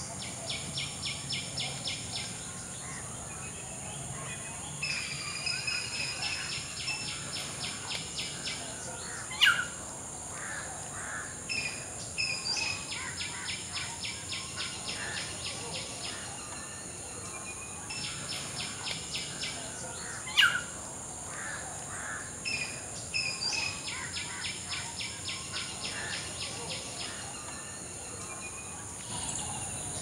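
Wetland birdsong: a bird calls in bouts of rapid evenly repeated notes, about six a second, lasting two to four seconds each, with two short, loud, sharp calls in between. A steady high insect drone runs underneath and stops near the end.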